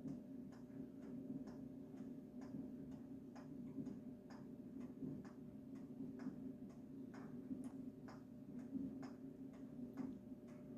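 Steady, even ticking, about two to three ticks a second, over a low steady hum.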